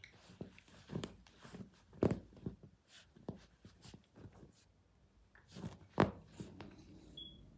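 A Pomeranian puppy digging and scratching at its plush dog bed: irregular soft scratches and rustles of paws and snout on the fabric, loudest about two seconds in and again about six seconds in.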